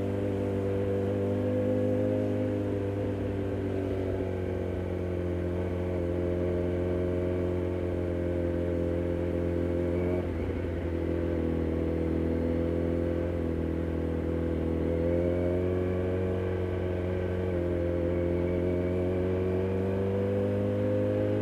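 Kawasaki Z900's inline-four engine running through an aftermarket DTMOTO exhaust, its note rising and falling gently, with a brief break in the tone about ten seconds in.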